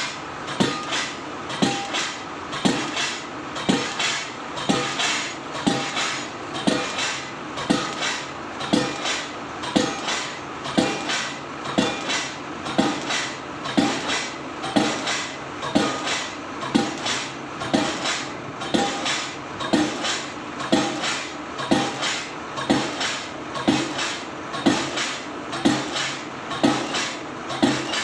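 Hydraulic pile-driving hammer striking a precast concrete pile in a steady rhythm of about one blow a second, each blow a loud metallic clank with a short ring, over a steady machine hum.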